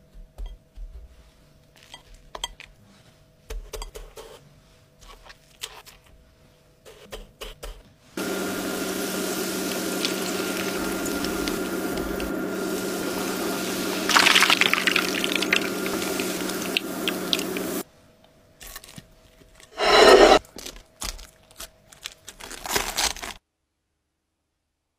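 Light taps and handling clicks, then from about eight seconds in a saucepan of hot oil sizzling steadily as breaded Camembert deep-fries, with louder crackling partway through; the sizzle cuts off abruptly, followed by a short loud burst of noise and a few taps.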